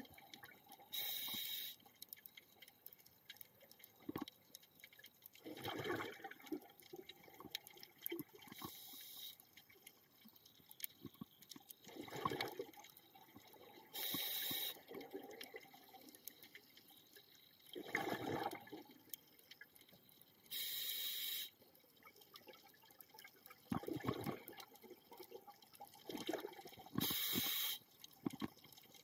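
Scuba diver breathing underwater through a regulator: a short hiss of air on each inhale, then a gurgling rush of exhaled bubbles, in a slow cycle of about one breath every six seconds.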